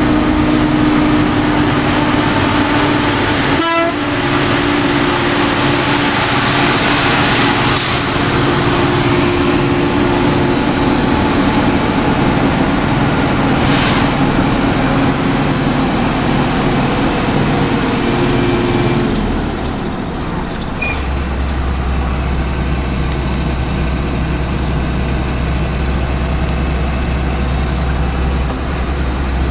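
Heavy truck engine running steadily under load, with road noise, heard from inside a following vehicle's cab. Its note drops to a deeper hum about two-thirds of the way through, and a couple of short hisses cut in along the way.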